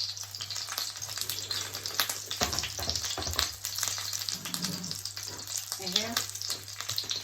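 Salmon sizzling and crackling in a frying pan, with a few low knocks from the pan about two and a half seconds in.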